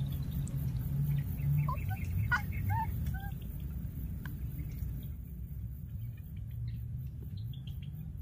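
A few short, high, rising animal chirps about two to three seconds in, over a low steady rumble that eases off about halfway through.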